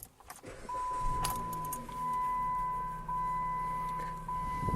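Keys jangling, then a car's engine running with a low steady hum while a steady electronic warning chime sounds, breaking briefly about once every second.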